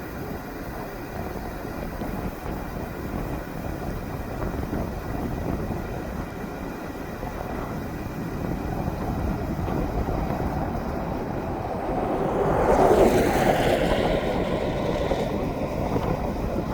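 Wind rushing over the microphone: a steady rough noise that swells louder about 12 to 14 seconds in.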